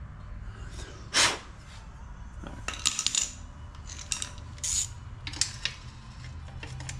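Metal hand tools clinking and clattering as a ratchet and socket are picked out: several short, sharp clanks spread over the seconds, over a steady low hum.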